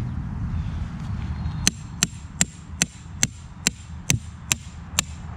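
Hammer blows driving a stake into soft ground: about nine steady, evenly spaced strikes, roughly two and a half a second, starting a little under two seconds in.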